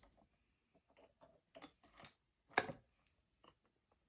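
Faint, scattered clicks and taps of small objects being handled, one louder tap about two and a half seconds in.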